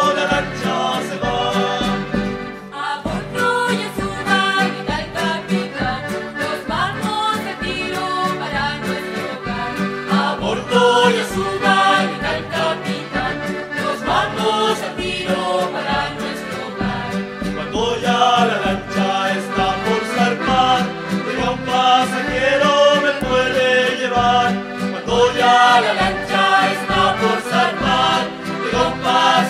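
Chilote folk music: an accordion-led tune over a steady beat, with a group of voices singing.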